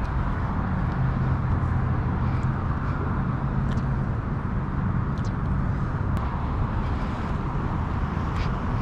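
Steady rushing of water pouring out of a sewer discharge outfall and churning into foam, with a few faint ticks over it.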